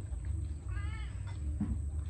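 A domestic cat meowing once, a single call about half a second long that rises and falls in pitch, about a second in.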